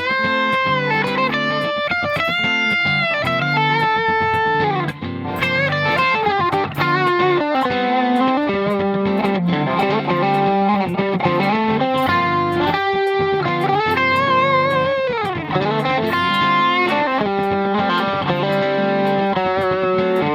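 Ibanez AZ2204 electric guitar playing an improvised lead line in D Dorian over a D minor 7 to G7 backing progression: a run of sustained notes joined by slides and bends, some held with wide vibrato, over steady chords underneath.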